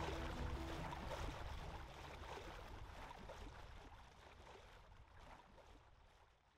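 Ambient water noise, an even hiss-like wash, fading out steadily to near silence.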